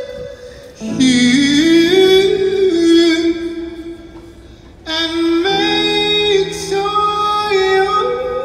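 A man singing into a corded handheld microphone in two phrases of long, held and sliding notes. There is a short lull about a second in and another in the middle.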